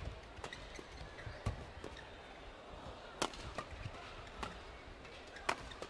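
Badminton doubles rally: rackets striking the shuttlecock in sharp cracks, two of them loudest about three and five and a half seconds in, with players' feet tapping and scuffing on the court between hits.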